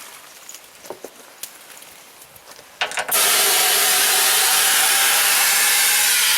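A few light clicks and knocks of tire tools on the rim, then a loud, steady rush of compressed air from an air hose, starting abruptly about three seconds in and cutting off near the end.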